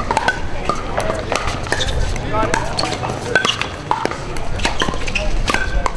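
Pickleball paddles hitting plastic pickleballs: irregular hard pops from play on this and neighbouring courts.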